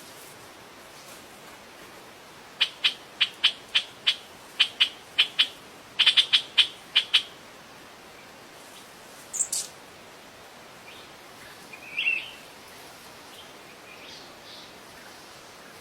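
A bird calling: a quick run of about fifteen short, sharp chirps, roughly three a second, then a brief high note and one more call a few seconds later, over a steady hiss.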